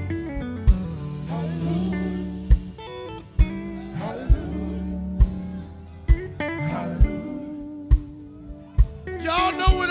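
Live gospel band vamping between verses: electric bass, electric guitar, drum kit and keyboard playing with a steady beat. A voice comes in near the end.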